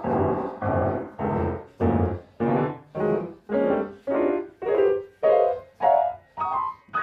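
Yamaha grand piano keys pressed down in clusters as a cloth glove wipes along the keyboard. Note clusters sound about twice a second and climb steadily from the bass toward the treble.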